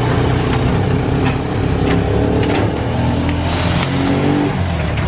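Van engine running and revving while driving, its pitch rising and falling, with a few sharp clicks or rattles along the way.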